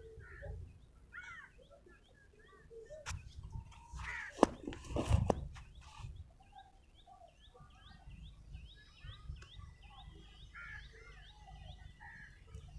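Birds chirping, one of them repeating a short call about two or three times a second through the second half. A few sharp knocks and a rustle, the loudest sounds, come about three to five seconds in.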